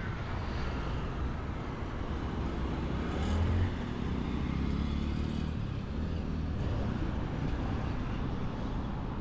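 Street traffic: a steady rumble of car engines and tyres, with one vehicle passing louder about three seconds in.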